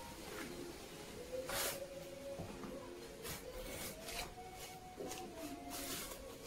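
Trowel scraping wet mortar into brick joints in a series of short strokes, the loudest about a second and a half in.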